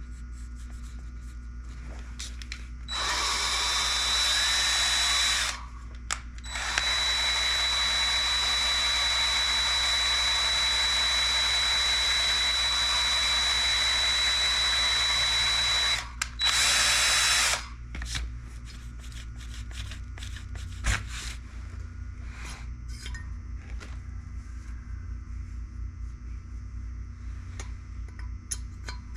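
A power drill spinning a valve against its seat to lap it into a Chevy 327 cylinder head, run in three bursts with a steady high motor whine: a short one, a long one of about nine seconds, and a brief one. After that, light knocks and rattles from handling parts.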